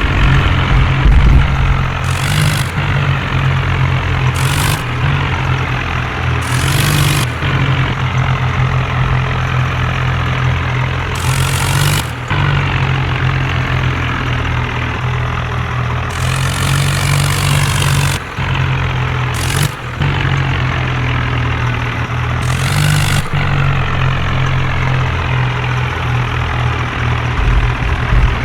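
Heavy vehicle engine running steadily with a low hum, broken by about nine short hissing bursts spread through the stretch.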